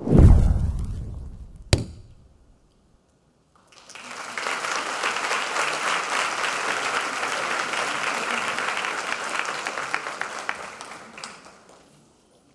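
A deep boom sound effect with the title animation, then a sharp single hit just under two seconds in. After a moment of silence, an auditorium audience applauds for about eight seconds, tapering off near the end.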